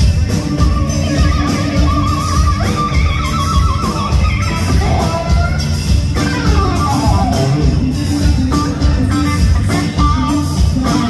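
Live instrumental rock-fusion trio playing loud: an electric guitar lead over bass and drums. The guitar holds a wavering, bent line in the first few seconds, then plays a falling run about six seconds in.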